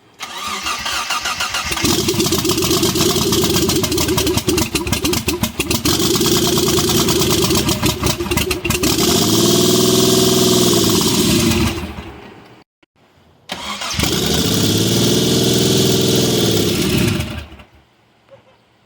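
Freshly rebuilt Mitsubishi 3000GT VR4 twin-turbo V6 cranking and catching, running rough-idle for several seconds, revved up and back down once, then shut off. It is restarted straight away, revved up and down once more, and shut off again.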